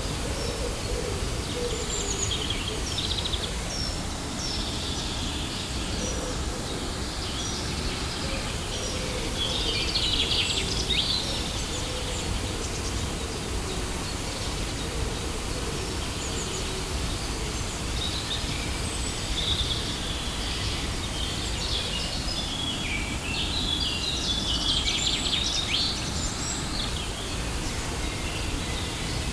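Steady rushing of a waterfall, with birds chirping over it. The chirps come thickest about a third of the way in and again near the end.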